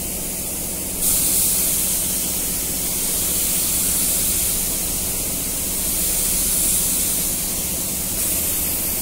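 Gravity-feed compressed-air spray gun hissing steadily while spraying the second and final coat of car paint onto a bonnet; the spray starts about a second in, over a steady low hum.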